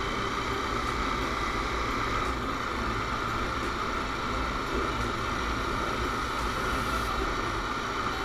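Honda CBR250R's single-cylinder engine running at a steady cruise, mixed with steady wind and road noise.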